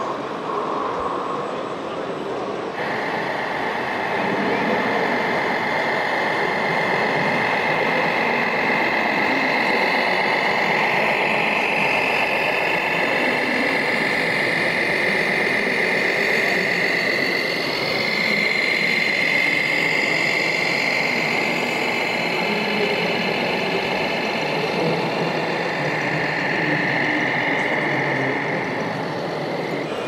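Radio-controlled scale model trucks running: electric drive and gear whine with simulated truck-engine noise. A high, wavering whine sets in abruptly about three seconds in and carries on.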